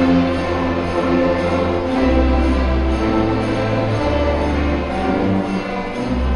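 A fifth-grade school orchestra playing live: sustained chords over a bass line that moves to a new note every second or two.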